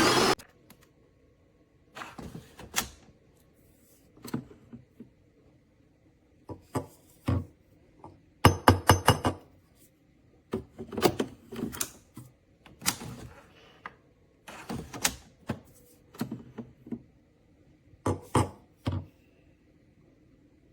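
Hard objects being handled, clicking and knocking in short clusters every second or two, with a quick run of about half a dozen clicks around the middle.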